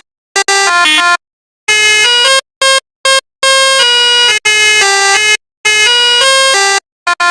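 Indonesian 'telolet' multi-tone bus horn sounding a tune: a string of loud chord blasts, the notes stepping up and down within each blast, each blast cutting off sharply into a brief silence before the next.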